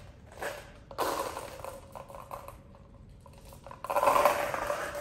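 Scraping and rattling handling noise from lab apparatus being set up, in two stretches: one about a second in and a louder one near the end.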